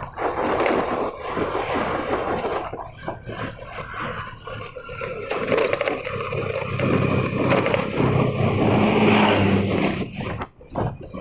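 Road noise from travelling along a road: rough, gusting wind-and-traffic noise that keeps cutting in and out, with a steady low engine hum coming up in the second half.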